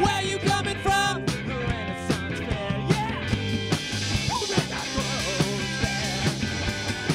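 Rock band playing punk-style rock in a studio: distorted electric guitars over a steady drum beat.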